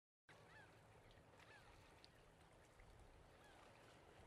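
Faint outdoor background with a low rumble and a few faint, short, distant bird calls, starting suddenly out of dead silence just after the start.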